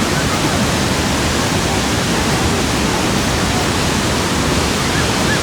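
Steady, loud rushing noise spread evenly from deep to high pitch, with no separate events.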